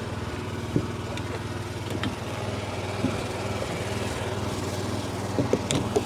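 Combine harvester's diesel engine idling steadily, with a few light knocks and clicks, a small cluster of them near the end.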